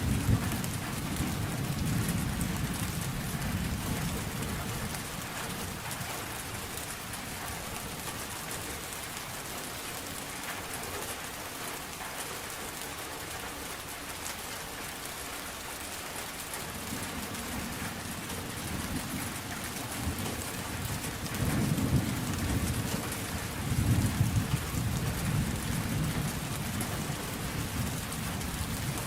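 Thunderstorm: steady rain with rolling thunder. A low rumble fades over the first few seconds, and thunder builds again a little past halfway, with two louder rolls near the end.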